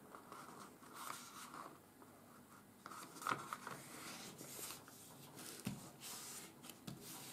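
Faint rustling and rubbing of a sheet of 80 g/m² office paper being folded in half and the fold smoothed flat by hand, with a few short, sharper scrapes.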